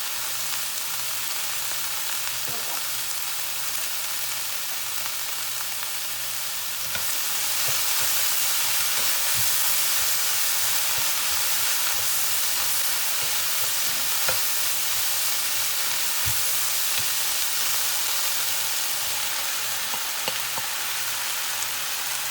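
Sliced sweet peppers and onions sizzling in hot oil in a frying pan, stirred with a utensil that clicks and scrapes against the pan now and then. The sizzle grows a little louder about seven seconds in.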